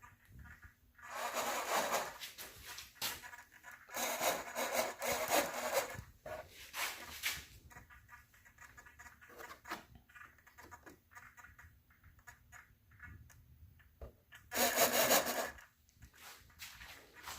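A hand tool rasping on wood in several bursts of strokes lasting a second or two each, with quieter scraping between them.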